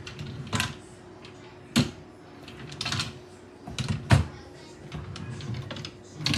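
Farmhouse buffet cabinet drawers being pulled open and pushed shut, giving a series of knocks and thuds, the loudest about four seconds in, with sliding rubs between them.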